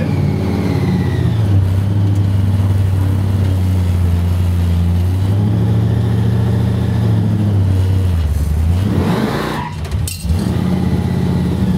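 Supercharged 350 Chevrolet V8 in a Holden HQ SS, heard from inside the cabin, running at low speed with a steady deep note. About nine seconds in, the note drops and then rises briefly before it steadies again.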